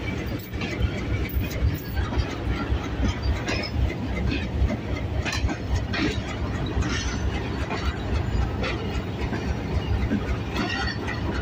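Passenger train coaches rolling past close by: a steady low rumble with frequent sharp clacks as the wheels cross rail joints.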